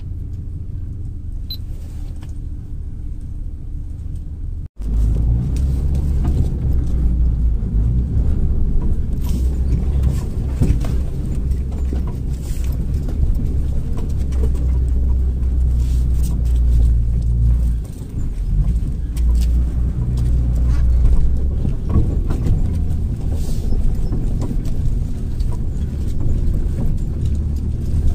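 Off-road 4x4 engine running in low gear as the vehicle crawls up a rough, overgrown track, with frequent knocks and rattles from the bumps. It is quieter for the first five seconds, then after a brief dropout it is louder and heard from inside the cab.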